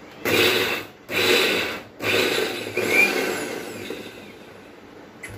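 Morphy Richards Aero mixer grinder pulsed three times in short bursts, coarsely grinding soaked lentils with spices into a batter. The motor winds down slowly after the third, longest burst.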